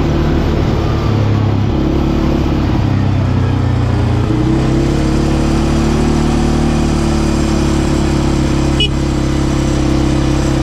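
CFMOTO quad bike (ATV) engine running steadily while riding on a dirt track, heard from the rider's seat, its note shifting a couple of times with the throttle.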